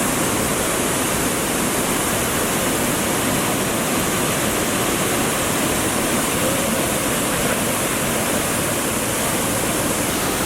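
Waterfall rushing, a loud steady roar of falling water with no change.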